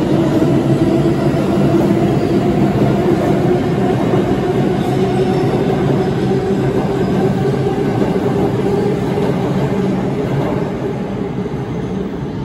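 New York City subway train running past at speed: a loud, steady rumble of wheels on rail with a motor whine that rises slightly, fading near the end.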